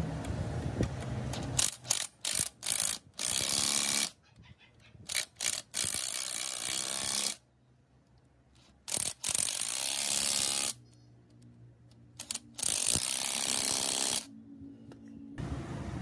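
A socket ratchet clicking in several quick bursts with short pauses between, as the bolts holding the pump body to its mounting bracket are tightened.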